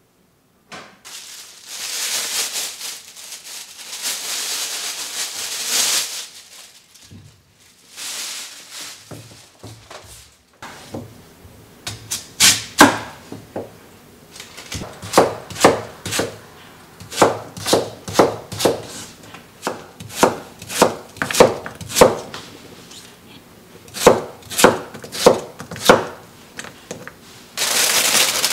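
A kitchen knife chopping a daikon radish on a wooden cutting board, a long series of sharp knocks in irregular runs starting about a third of the way in. Before that there are two stretches of steady hissing noise.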